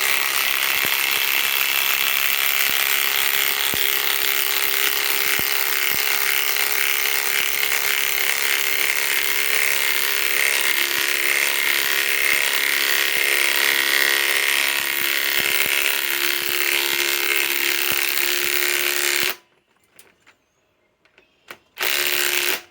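Ryobi PSBIW25 compact impact wrench hammering steadily for about nineteen seconds as it drives a 5/16 by 3 inch galvanized lag screw into wood, then stopping abruptly. After a couple of faint clicks, one short burst of impacting comes near the end.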